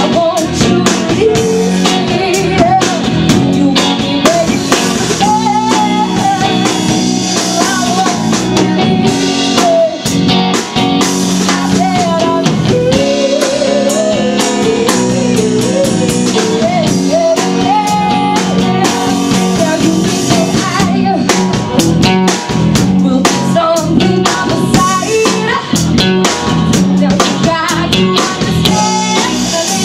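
Live band playing loudly through the PA during a sound check: drum kit, electric guitar and a sung vocal line.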